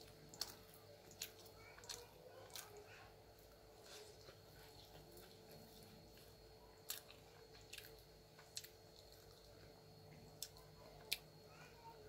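Quiet close-up eating of soft uttapam: chewing with scattered sharp wet mouth clicks and smacks, roughly one every second, over a faint steady hum.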